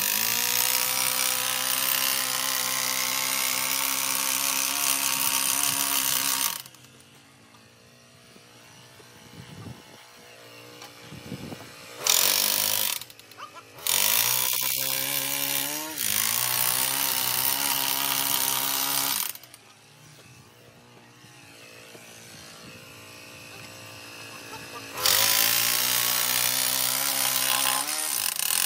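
A power tool driving a Multifix 125 screw-in footing runs in several stretches with pauses between. Its pitch climbs as the motor spins up at each start.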